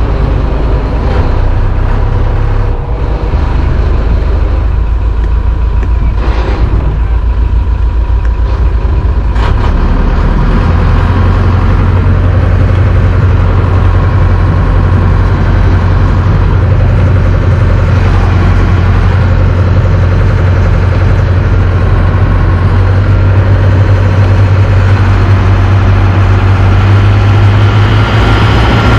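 Towboat's engine running steadily under load, pulling a large motor yacht on a tow line; its low hum grows stronger about ten seconds in.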